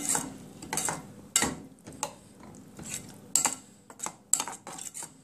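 Metal spoon stirring okra and carrots in curry sauce in a pot, clinking and scraping against the pot with irregular knocks.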